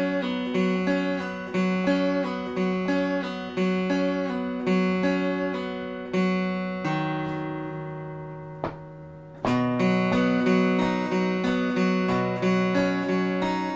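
Acoustic guitar playing a song intro, chords struck in a steady rhythm about twice a second. Midway one chord is left to ring out and fade, with a brief tap, before the rhythm picks back up.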